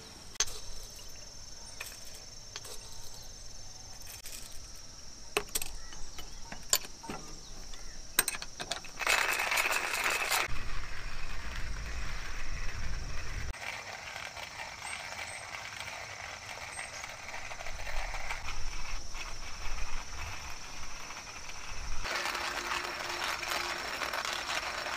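Scattered light metallic clinks and rattles of camp cookware and utensils being handled, with a burst of hiss about nine seconds in and again near the end, over a steady high-pitched tone.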